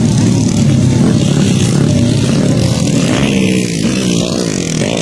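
Several motocross dirt bike engines revving as the bikes race the track, their pitches rising and falling and overlapping.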